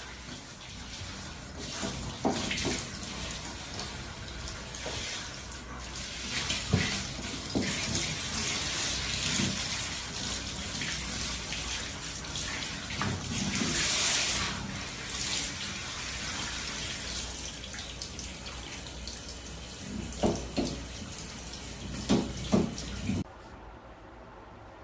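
Water running steadily, with scattered short knocks and a few brief higher-pitched sounds, then a sudden drop to a much quieter background near the end.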